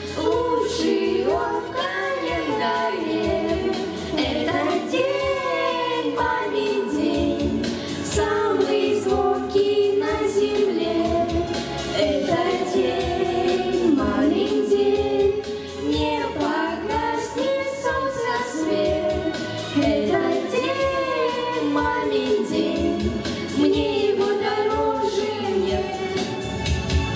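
Children's vocal ensemble singing a song into stage microphones, several young voices together.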